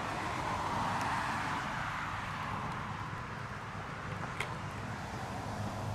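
A car passing on the street: tyre and road noise swelling over the first second or two, then slowly fading away. A single sharp click sounds about four and a half seconds in.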